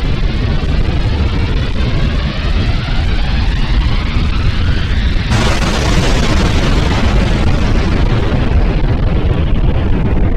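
A loud, deep rumbling roar with several rising whines, which turns suddenly into a harsher, fuller roar about five seconds in.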